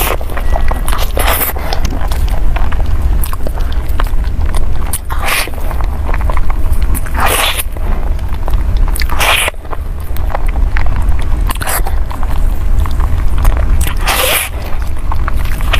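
Close-miked eating of a soft cream-filled crepe cake: wet bites and chewing, with short louder mouth sounds every couple of seconds over a steady low hum.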